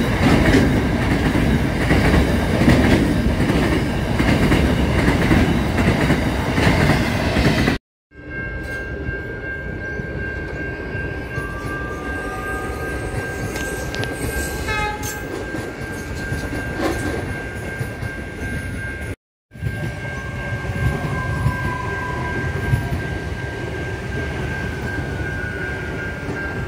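Hopper wagons of a freight train rolling past with heavy wheel rumble and clatter. About 8 seconds in it cuts to an Adelaide Metro electric multiple unit passing, quieter, with a steady high tone and faint gliding whines.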